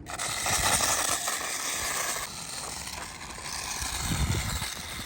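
A small 1/24-scale RC truck built on an SCX24 chassis, driven over loose gravel: the electric motor and drivetrain gears whine under a hiss of tires on gravel. It starts suddenly, is loudest for about two seconds, then eases off.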